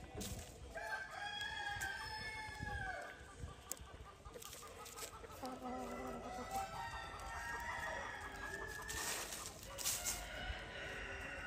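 Ayam Cemani rooster crowing, one long crow about a second in, followed by several chickens clucking and calling over one another. A few sharp clicks come near the end.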